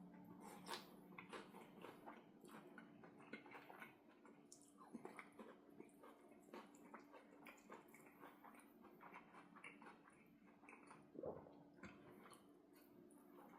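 A person chewing food close to the microphone: a run of faint, irregular wet clicks and smacks of the mouth eating, over a faint steady hum.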